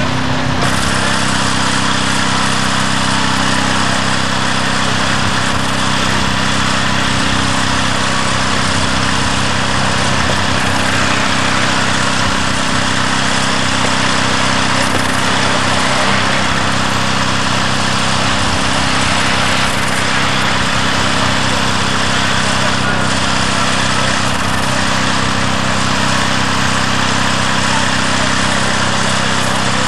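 Small gasoline engine running steadily at one constant speed: the power unit of a hydraulic rescue tool ("jaws of life") driving its spreader-cutter.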